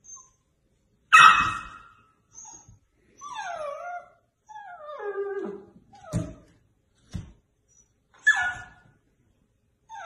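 Golden retriever puppy barking and whining at its own reflection in a mirror: a sharp bark about a second in, then drawn-out whines that slide down in pitch, two short thumps, and another bark near the end.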